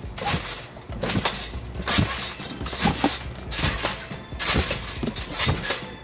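A trampoline being jumped on: its mat and springs give a sharp bounce sound about once a second, in a steady rhythm.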